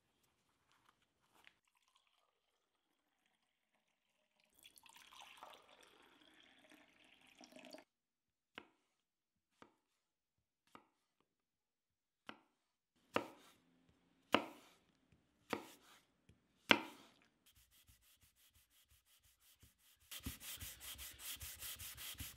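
A run of quiet everyday handwork sounds. First faint lace ticks and a rustle from bootlaces being pulled and tied. Then a kitchen knife chops an apple on a wooden cutting board, single sharp chops about a second apart, growing louder partway through. Last, a sanding block is rubbed fast back and forth along a wooden board, much louder near the end.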